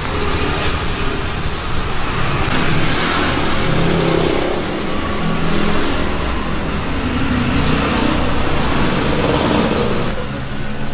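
A motor vehicle's engine running close by, with a dense rushing noise.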